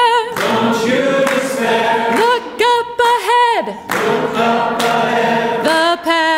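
Congregation and a song leader singing unaccompanied in call and response: sung phrases in many voices, with short gaps between lines.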